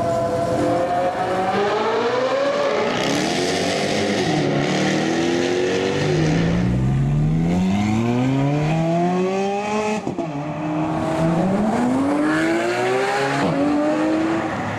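Supercar engine accelerating hard through the gears: the engine note climbs steadily, drops sharply at each upshift (about ten seconds in and again near the end) and climbs again.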